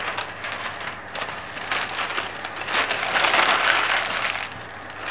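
Paper pattern pieces and plastic sheeting rustling and crinkling as they are handled and crumpled, with many small crackles, loudest about three seconds in.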